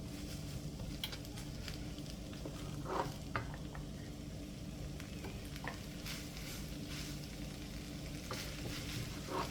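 Spaghetti, chicken and vegetables sizzling quietly in a frying pan as they are stirred, with scattered scrapes and clicks of the stirring utensil against the pan.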